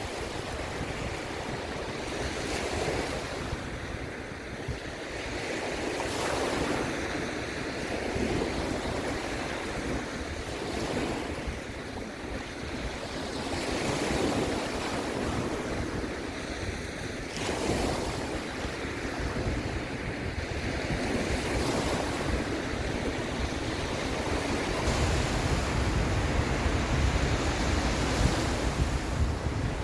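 Sea waves breaking and washing in, swelling and fading every few seconds. Wind rumbles on the microphone, stronger near the end.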